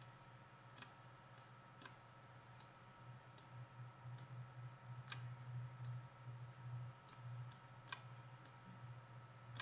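Computer mouse clicking now and then, about a dozen short, uneven clicks, over a faint low steady hum.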